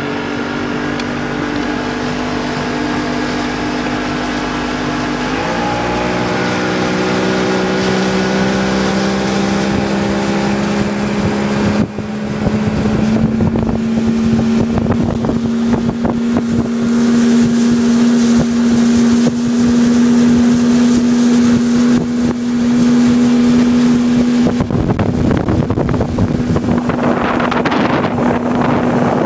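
Procraft bass boat's outboard motor throttled up. Its pitch steps up about five seconds in and shifts again near twelve seconds, then it runs steadily at speed. Wind and water rush grow louder toward the end, with wind on the microphone.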